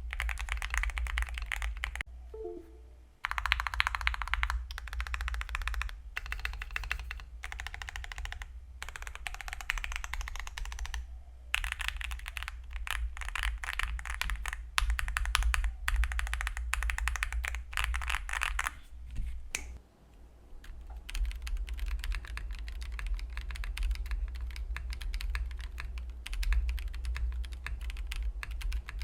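Typing on a Wind X98 mechanical keyboard, first with stock Gateron Azure Dragon switches and the case fully foamed, in runs of rapid keystrokes with short pauses. About two-thirds of the way through, after a brief break, the typing switches to stock Gateron Epsilon switches with no foam in the case.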